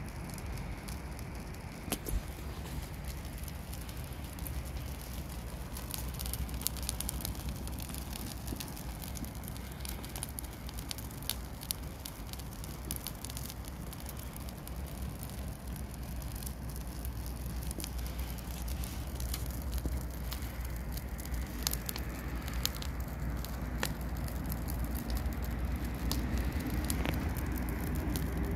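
Branches and twigs burning in a metal drum: a steady low rush of flame with many sharp crackles and pops.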